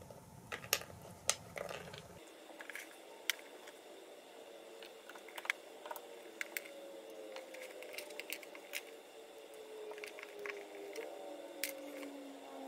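Scattered light clicks and small crackles of plastic nail-tip swatches being handled and pulled off a nail polish swatch book.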